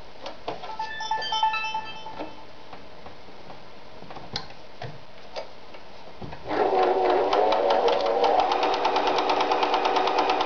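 Riccar 906E electronic sewing machine starting to stitch cotton fabric about six and a half seconds in: a fast, even stitching rhythm over the motor's hum, which climbs in pitch as it gets up to speed and then runs steadily. Before it, a few light clicks.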